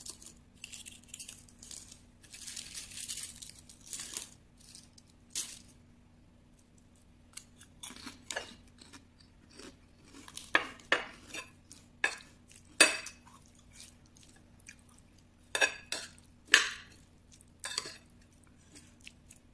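Crisp kerupuk crackers rustling and crunching as they are lifted off a ceramic plate, then a metal spoon clinking and scraping against the plate while the food is stirred. The clinks come as sharp separate clicks, loudest in the second half.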